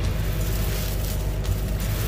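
Clear plastic oven bag crinkling and rustling as a gloved hand works a roast and vegetables inside it, over a steady low hum.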